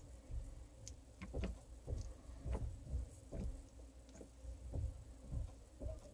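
Faint handling sounds of wiring work: irregular light clicks and scrapes of a plastic wire nut being twisted onto stranded wires inside an opened hammer drill housing, with soft low thumps among them.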